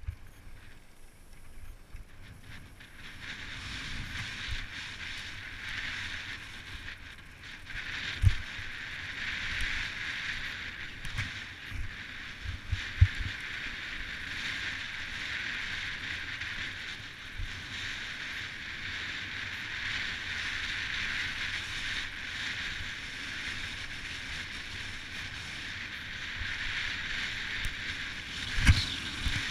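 Mountain bike rolling down a dry dirt singletrack: a steady hiss of tyres and riding noise, with a sharp thump about eight seconds in, two more around thirteen seconds and another near the end as the bike hits bumps.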